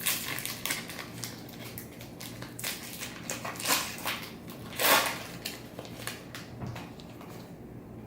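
Foil trading-card pack wrapper crinkling and tearing as the pack is opened, in irregular rustles with two louder crinkles near the middle, then quieter handling near the end.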